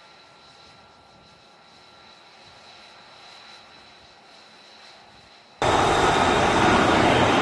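F-35B jet engine heard faintly as a steady whine with thin high tones; about five and a half seconds in it cuts suddenly to loud jet-engine noise from an F-35B hovering low over the deck.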